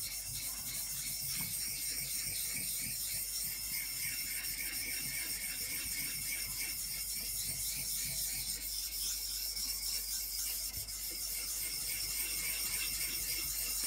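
Steel chisel rubbed back and forth on a wet Makita 1300-grit Japanese water stone, a steady gritty scraping of continuous strokes. The chisel is being matted on the stone, which cuts well and sheds its own grit.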